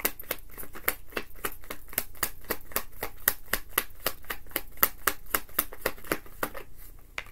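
A deck of tarot cards being shuffled by hand: a rapid, even run of card snaps, about five or six a second, stopping shortly before the end.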